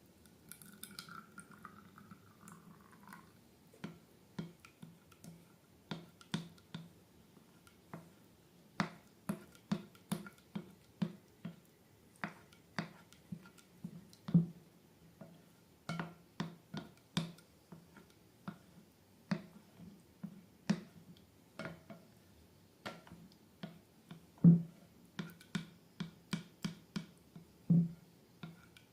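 Slime being squeezed and poked by hand, giving irregular sticky clicks and pops, a few louder than the rest, over a faint low hum.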